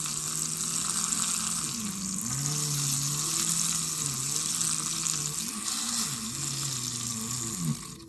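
Small motor of a mini makeup brush washing machine whirring as it spins a makeup brush in soapy water, with a steady swishing of the water over a low hum that wavers and dips in pitch several times. Near the end the swishing drops away sharply.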